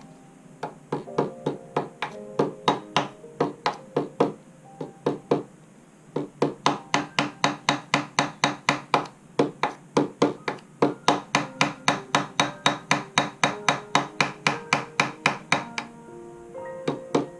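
Small brass-headed hammer tapping repeatedly on a thin rod held against a guitar neck at the nut end, at about three light taps a second. The taps pause briefly around six seconds in and stop about a second before the end.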